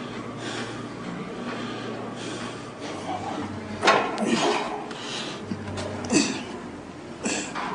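Heavy, rhythmic breathing of a lifter straining through a weight-training set, with a breath about once a second. There are a few sharper, louder bursts about 4, 6 and 7 seconds in.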